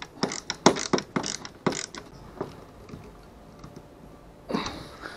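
Quick, irregular ratcheting clicks, about a dozen in the first two seconds, as a screw is tightened into a plastic fish finder mount, with care not to crack the plastic. One more click follows, then a short rustle near the end.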